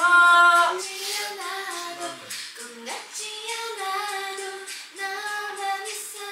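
Music with a woman singing in long held notes, the loudest a high note at the very start.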